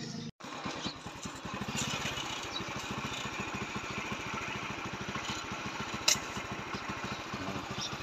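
A small engine running steadily, with even, rapid low pulses. A single sharp click comes about six seconds in.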